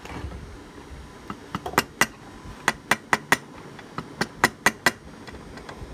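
About a dozen sharp, short taps in quick irregular succession, bunched between about one and five seconds in, from hands working on a small DC motor armature's copper windings and commutator during rewinding.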